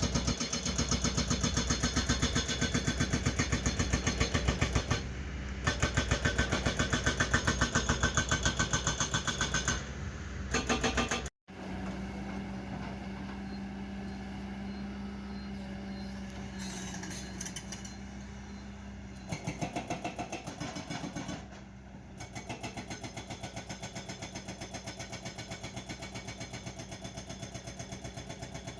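Heavy diesel engine of a tracked excavator running with a steady, fast firing beat. It is loud for the first ten seconds, then cuts off suddenly about eleven seconds in and comes back quieter, rising briefly around twenty seconds.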